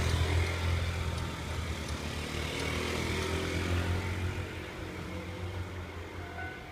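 Low engine rumble of a vehicle going past at a railway level crossing, loudest in the first few seconds and then slowly fading. Near the end a Japanese level-crossing alarm starts, a quickly repeating electronic ding.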